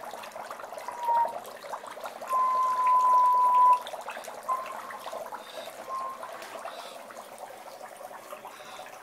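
Dry ice bubbling in a bowl of water, a dense, continuous crackling gurgle. A few short steady whistle-like tones sound over it, the longest and loudest starting a little over two seconds in and lasting about a second and a half.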